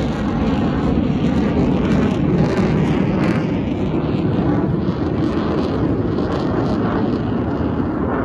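Aircraft flying over the airshow crowd: a steady, loud rumble of engine noise, with wind buffeting the microphone.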